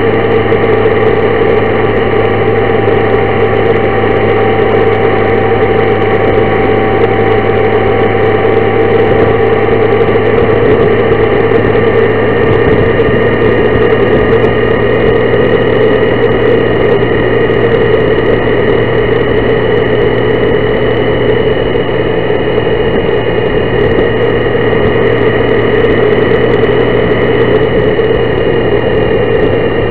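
Honda Gold Wing motorcycle cruising at a steady speed: a constant engine drone mixed with road and wind noise.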